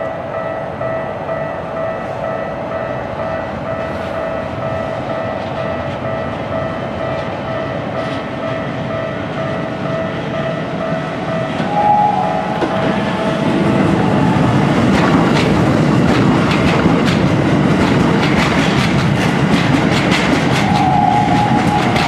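Level-crossing warning bell ringing steadily. From about halfway a Keikyu 1000 series stainless-steel electric train passes over the crossing, growing louder, with rapid wheel clatter over the rail joints. A tone falls in pitch near the end.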